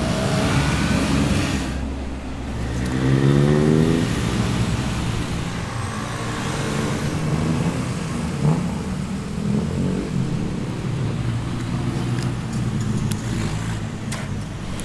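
Road traffic: motor vehicle engines running steadily, one accelerating with a rising pitch about three seconds in, when it is loudest.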